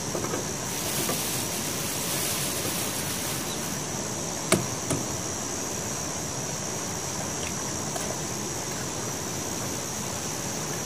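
Instant ramyeon broth boiling in a steel pot on a portable butane gas stove, a steady bubbling hiss. About four and a half seconds in comes one sharp knock and a smaller one just after, as an egg is cracked on the pot and dropped in.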